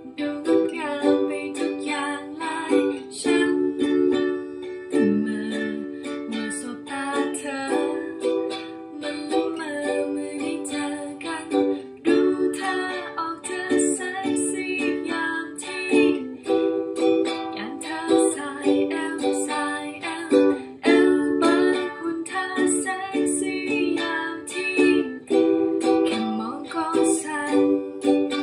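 Ukulele strummed in a steady down-down-up-up-down pattern, cycling through the three-chord progression of D, E minor and G, with a woman's voice singing along.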